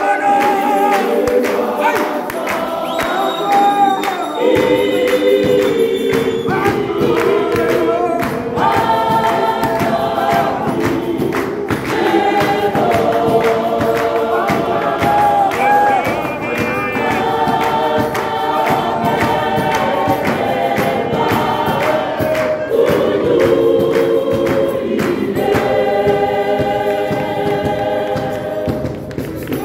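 Mixed-voice gospel choir singing in harmony, with hand clapping keeping time; the lower voices fill in about four seconds in.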